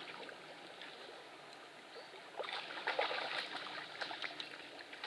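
Water splashing and trickling in the shallows at the lake's edge as a hooked pike is played in on a bent rod: a run of small splashes and light clicks that gets busier about halfway through.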